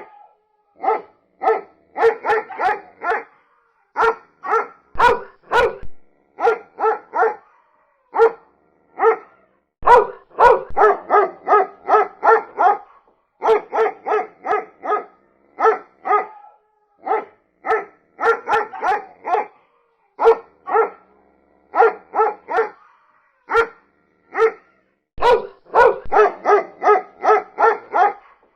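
A dog barking repeatedly in quick runs of several barks, with short pauses between the runs.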